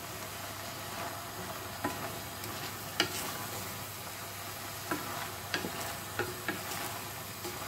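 Wooden spatula stirring red lentils and Malabar spinach in an aluminium pot, with several sharp taps and scrapes of the spatula against the pot, over a steady hiss of the food cooking on the gas flame.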